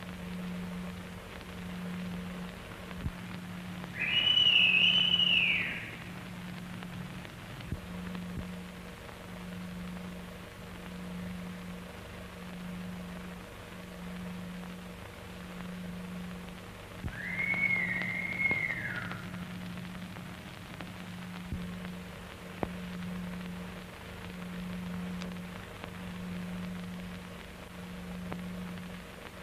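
A low hum pulsing about once a second under hiss, broken twice by a long high whistle-like tone that rises and falls, the first about four seconds in and the second, a little lower, past the middle.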